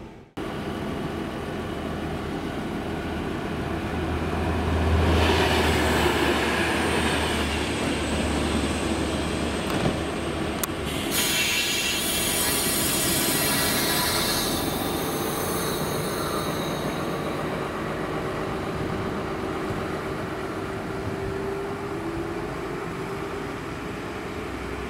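DB class 628 diesel multiple unit moving off, its diesel engine running with a low hum that is loudest about five seconds in. High squealing and hissing set in at about the same time and fade after about seventeen seconds, with a single sharp click near the middle. Late on, a steady tone slowly rises in pitch as the unit draws away.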